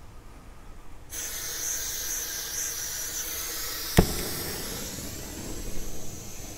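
Propane grill-and-garden torch: gas starts hissing out about a second in, then the torch lights with a single sharp pop about four seconds in and keeps burning with a steady hiss as it is turned on charcoal in a chimney starter.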